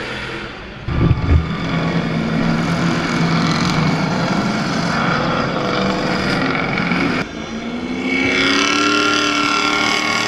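Off-road race truck engines running on the street circuit, one held at a steady pitch for several seconds. A couple of low thumps come about a second in, and near the end an engine revs up with rising pitch as a truck accelerates.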